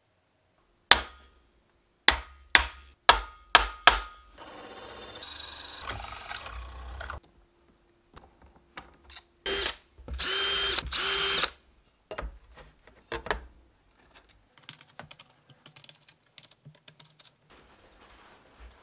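A cordless drill boring holes through an aluminium plate in short whining runs, preceded by a quick series of about five sharp metallic knocks. Near the end, faint light clicking as screws holding a steel linear slide rail are tightened with a hex key.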